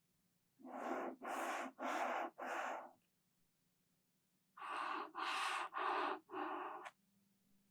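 Floss rubbed back and forth against the microphone in two sets of four quick, hissy strokes, with a pause of about a second and a half between the sets.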